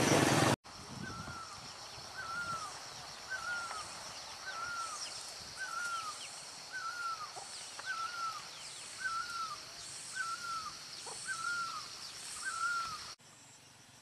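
A bird repeating one short whistled note about once a second, eleven times, over a steady high-pitched background hiss with faint chirps from other birds. It starts after a brief burst of loud noise that cuts off about half a second in, and the calls stop abruptly near the end.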